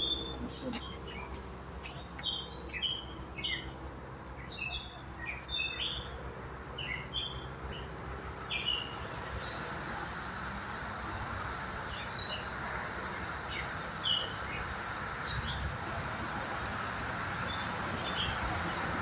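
Birds chirping, many short high chirps through the first half and fewer later, with a steady high-pitched hiss setting in about halfway through.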